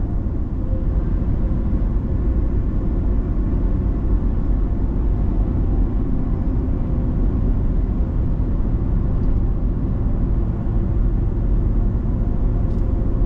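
Steady low rumble of engine and road noise inside the cab of a Ford Super Duty pickup driving on the highway.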